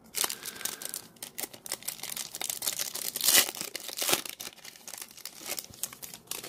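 Foil trading card pack crinkling and tearing as it is ripped open by hand, in a run of irregular crackles with the loudest burst about halfway through.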